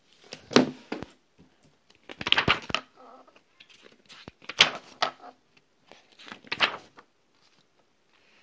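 Pages and cover of a hardcover picture book being opened and turned: four rustling, flapping sweeps about two seconds apart.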